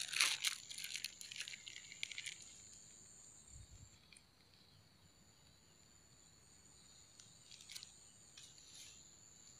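Insects calling in a steady high-pitched drone. A rapid, scratchy clicking rattle runs over the first two seconds or so, and a few fainter ones come near the end.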